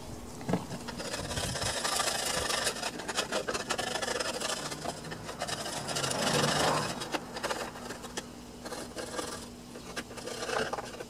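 Uneven rubbing and scraping with scattered small clicks as hands work over a garden tractor's frame and dash, louder around two seconds and six seconds in.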